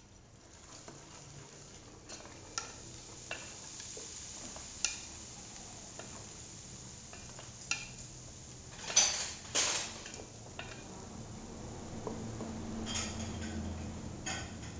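Thick chili paste being stirred in a stainless steel stockpot: a long spoon scraping through it and clinking against the pot's sides, with two louder knocks about nine and ten seconds in, over a steady hiss.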